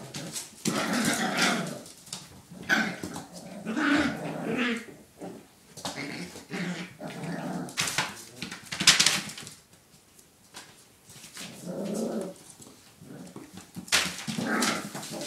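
Several puppies growling and yapping in irregular bursts as they play-fight, with a few sharp noisy bursts, the loudest about nine seconds in.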